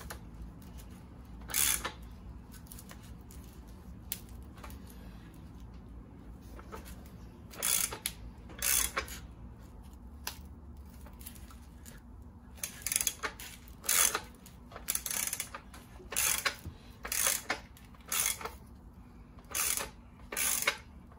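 Hand ratchet on a 32 mm socket turning the forcing screw of a bearing press kit, clicking in short bursts as it winds down to press a new polyurethane trailing arm bushing into the arm. The bursts are sparse at first and come more often in the second half.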